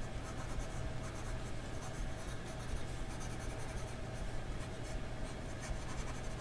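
A Japanese soft-medium fountain pen nib scratching faintly over the paper of a ruled softcover A5 notebook in a run of short pen strokes, writing a word and then scribbling.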